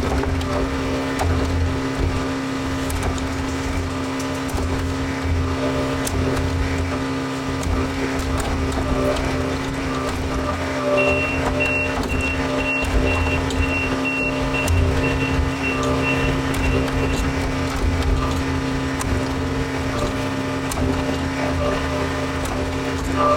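John Deere 410 backhoe loader's diesel engine running steadily. About halfway through, a backup alarm sounds a row of short high beeps, about two a second, for several seconds.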